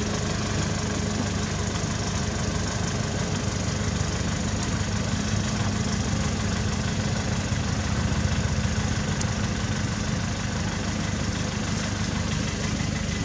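An engine idling with a steady low hum that holds even throughout.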